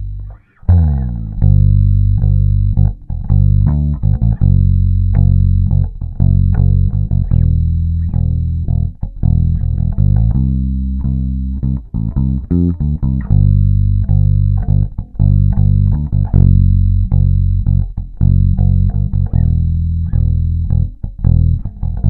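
Older-production (2010 and earlier) Epiphone Thunderbird Classic IV electric bass playing a continuous riff of plucked notes, with both pickup volumes and the tone knob fully up. The riff starts after a brief break about half a second in.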